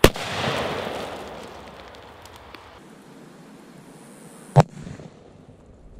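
Flash-powder cherry bomb detonating in a single sharp bang about four and a half seconds in, the loudest thing heard. Before it, after a click at the start, its lit fuse hisses and sputters, louder at first and then fading.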